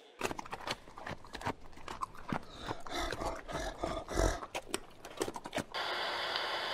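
Giant panda chewing bamboo: irregular crunching and snapping of stalks, with leaves rustling. Near the end it cuts to a steady hiss.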